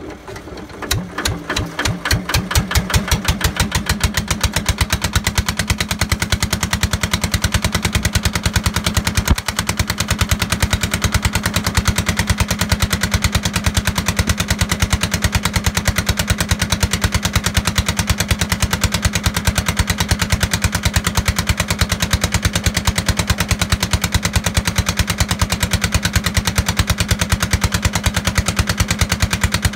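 Lister LR1 single-cylinder air-cooled diesel catching on a cold start: separate firing beats that quicken over the first two to three seconds, then running at an even, steady beat.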